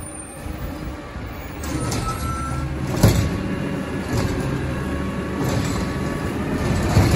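Diesel engine of a Peterbilt 320 garbage truck running as it pulls up and stops, and its automated side-loader arm lifts a cart. It gets louder about two seconds in, with a sudden sharp sound about three seconds in and another near the end.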